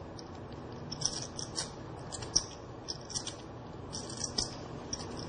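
Poker chips clicking against each other in quick, irregular clusters as a player handles a chip stack.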